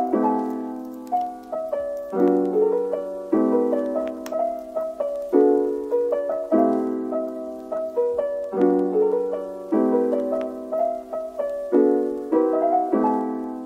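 Background music: a gentle piano piece, with new chords struck about once a second in a repeating pattern.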